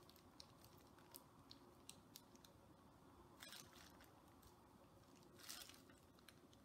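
Near silence with faint small clicks and crackles of gloved hands working a squeeze bottle of tie-dye against a folded fabric mask, with two brief soft hissing squirts, about three and a half and five and a half seconds in.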